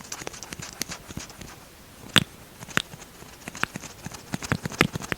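Close-miked lip sounds as lipstick is applied: an irregular string of sharp, wet lip smacks and clicks, the loudest about two seconds in.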